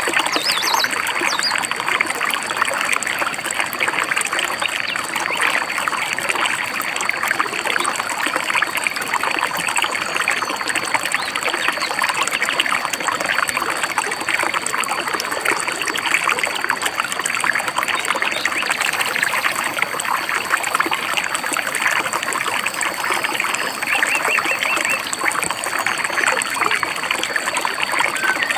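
Shallow stream babbling and trickling steadily.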